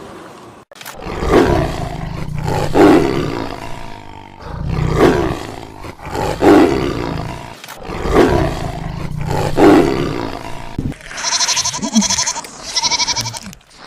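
A big cat roaring: three long roars, each swelling twice, with a deep rumble underneath. A goat starts bleating about eleven seconds in, several short quavering bleats.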